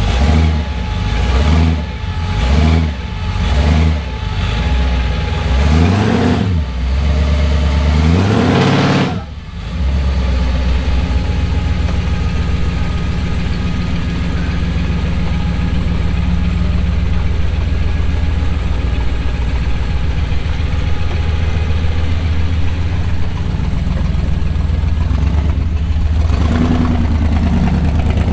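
Supercharged engine in a Chevrolet truck revved in a series of quick blips, each rising and falling in pitch. About nine seconds in it drops away, and from there the engine runs steadily, with one short rev near the end.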